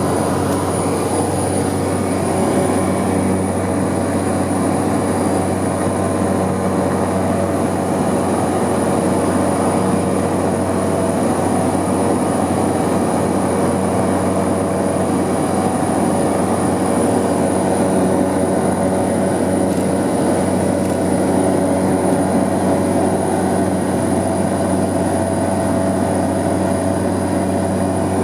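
The single Pratt & Whitney PT6A turboprop engine of a Cessna 208B Caravan heard from inside the cabin, running at steady power: a deep drone with a thin high whine over it.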